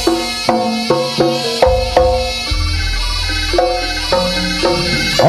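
Javanese jaranan gamelan music: struck metallophones play a quick repeating melody of short ringing notes, with a deep low tone underneath from about two seconds in.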